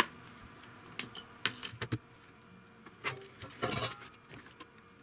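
Handling clatter from an opened welding inverter's plastic housing and circuit board as it is picked up and turned over on the bench: scattered light clicks and knocks, then a louder rattling scrape about three and a half seconds in.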